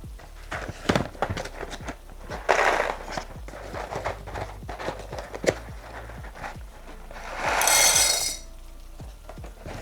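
Kitchen clatter while cooking: a run of knocks and clicks from pans, utensils and packets, with a brief rushing burst about two and a half seconds in and a louder one near the end.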